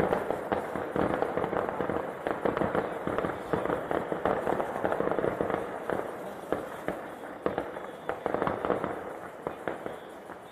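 Fireworks display: a dense, continuous run of crackling pops that keeps going without a pause.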